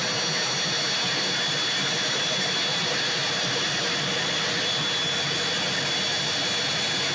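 Aircraft turbine engine running steadily: an even rushing noise with a constant high whine, no change in pitch or level.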